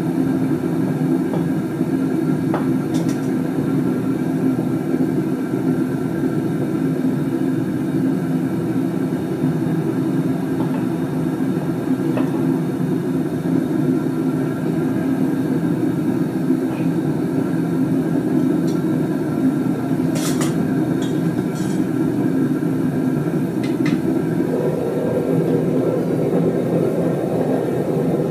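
Gas burner firing a homemade furnace built from an old gas cylinder, running with a steady rushing noise. A few sharp clicks from tongs and metal tools. Near the end the noise turns brighter, with the furnace lid off.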